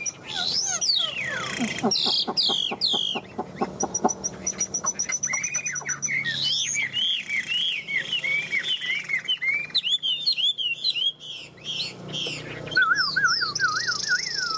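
Caged Chinese hwamei (Garrulax canorus) singing a long, varied song of whistled phrases: a long falling whistle, a fast run of clicks, repeated high notes and looping up-and-down notes, ending in a quick trill.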